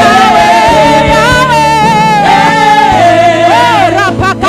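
Gospel worship music: a sustained vocal line, wavering and sliding in pitch, over steady held keyboard or organ chords.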